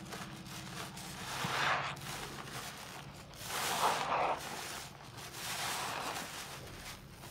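Sudsy sponge squeezed and wrung by rubber-gloved hands over a bowl of foamy water: wet squelching with water and foam running back into the bowl, in three swells about two seconds apart.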